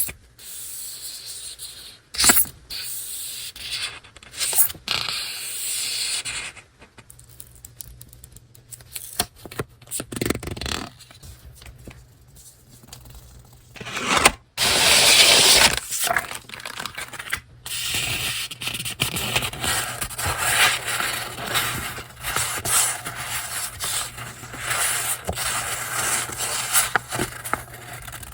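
Paper stationery and its packaging being handled and unwrapped: sheets sliding and scraping, with rustling and small crisp clicks, and a longer, louder rustle about halfway through.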